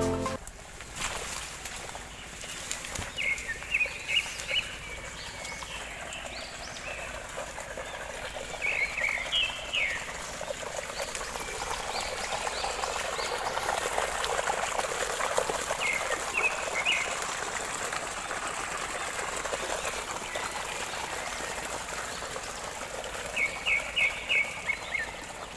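Water gushing steadily from an irrigation pump's outlet pipe into a muddy field channel, with small birds chirping in short bursts of rapid high notes several times over it.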